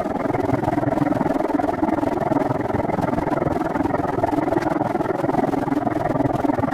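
Steady, even rushing noise with no distinct events, typical of wind and rolling noise picked up by a camera on a moving bicycle.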